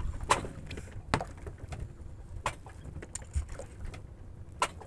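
Small wooden fishing boat on the sea: a low, steady rumble of water around the hull, with about four sharp knocks or clicks spread through it.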